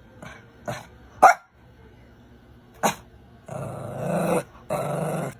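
A dog barking four times in short, sharp yaps, then growling twice in longer rough bursts near the end.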